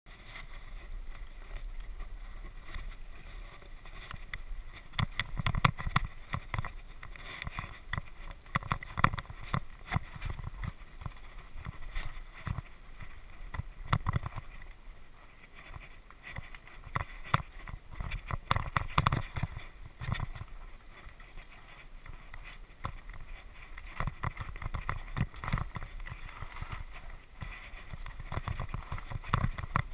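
Trek Rail 9.8 electric mountain bike ridden fast over a rough forest singletrack: irregular clatter and thumps as it hits bumps, over a steady rushing of tyre and wind noise.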